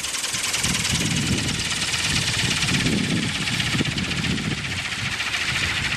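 Align T-REX 700 RC helicopter running on the ground with its rotors spinning: a steady, high-pitched drivetrain and rotor noise with a fine rapid flutter, over an uneven low rumble, as its gears are tested.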